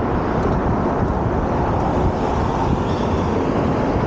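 Steady wind rushing over the microphone, mixed with road and tyre noise from a Super73-Z1 electric bike riding along.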